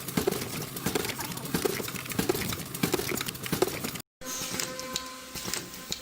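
Short knocks or taps, roughly two or three a second, then a sudden cut about four seconds in and a steady mechanical hum with scattered clicks.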